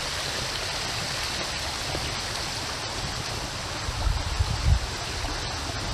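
Creek water running steadily over rocks, an even rushing sound, with a brief low rumble about four seconds in.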